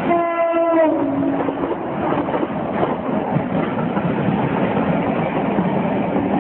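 Train horn blast sounding two notes for about a second and a half, dropping slightly in pitch as it ends. Under it and after it is the loud, steady rush of a train passing.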